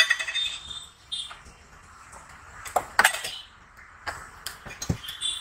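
Steel utensils clinking against an iron tawa: several sharp metallic clinks at uneven intervals, some ringing briefly.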